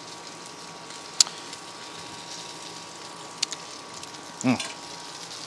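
Steady sizzling hiss of food cooking on a propane flat-top griddle, with gravy simmering in a skillet. A sharp click about a second in, and a brief hum from a man near the end.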